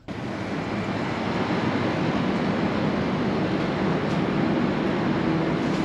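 Steady rushing roar of open air on a high-rise balcony: wind mixed with the distant hum of city traffic far below. It starts abruptly and holds at an even level.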